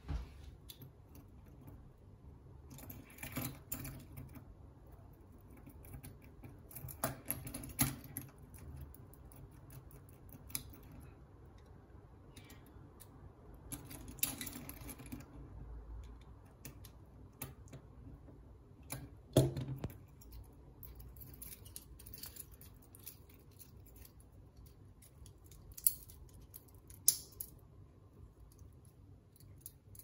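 Metal links of a Leatherman multitool bracelet clinking and rattling against a watch case while a small screwdriver works a screw at the lug: scattered light clicks and short jingles, with a few sharper clicks near the middle and two near the end.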